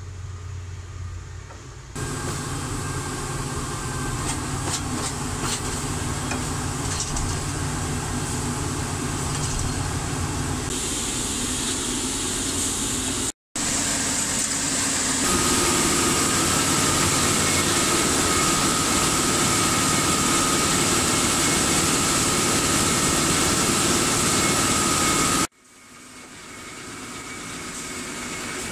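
Plasser & Theurer PLM 07-275 switch tamping machine running close by, a steady mechanical drone from its engine and drive. From about halfway a steady high whine sits over it. The sound breaks off abruptly about a third and nine-tenths of the way through, then resumes.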